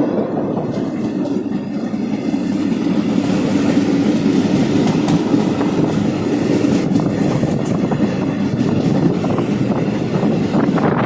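Rajgir Intercity passenger train running along the track: a steady loud rumble of the carriages with scattered clicks from the wheels.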